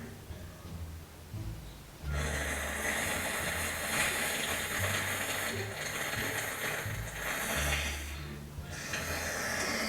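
Loud, exaggerated fake snoring: a long rasping snore sets in about two seconds in, breaks off briefly near the end and starts again.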